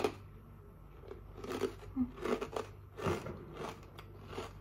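Someone chewing Kims Snack Chips crisps with the mouth close to the microphone: a run of irregular crisp crunches.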